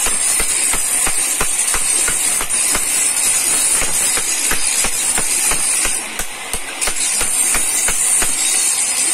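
Small hammer tapping a steel chisel against a stone grinding slab (shil), pecking fresh pits into its grinding face to roughen it. The sharp taps come evenly, about three a second, over a steady high hiss.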